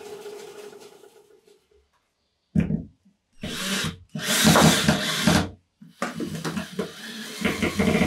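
Cordless drill running in four bursts as its bit works into plywood: two short runs, then two longer ones over the last four seconds.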